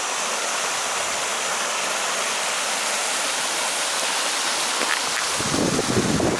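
Steady rushing of running water, like a stream or small waterfall. A low rumble of wind on the microphone joins it near the end.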